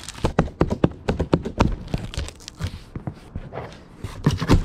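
Papers and bags rustling and crinkling as items are rummaged and pulled out of a cardboard box: a quick run of crinkles and clicks at first, sparser after, then a few louder knocks near the end.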